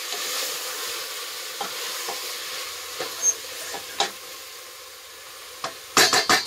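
Grated onion, celery and lamb sizzling in a stainless steel stockpot while a wooden spoon stirs them, with scattered knocks of the spoon against the pot. The sizzle eases off, and near the end the spoon knocks sharply on the pot a couple of times.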